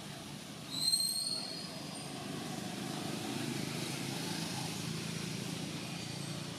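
Steady low rumble of distant motor traffic, swelling a little midway. About a second in, a brief high squeal rings out and fades.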